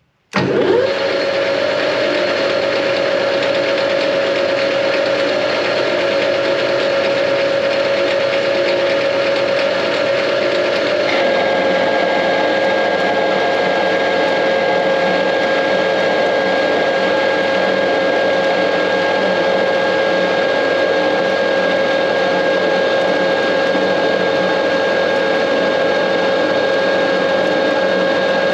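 Metal lathe starting up, spinning up within the first second and then running steadily with a steady whine while turning a steel shaft on a 2 mm pass. About 11 seconds in, the pitch drops slightly and a higher whine joins.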